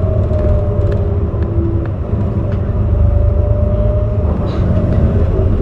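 Heuliez GX327 city bus under way with its ZF 5HP 504C automatic gearbox: a steady low engine drone with a held gearbox whine over it and light scattered rattles.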